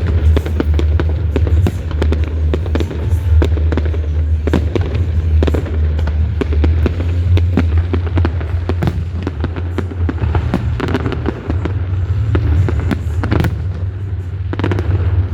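Fireworks going off in a dense, continuous run of crackles and sharp pops, several each second, over a steady low rumble.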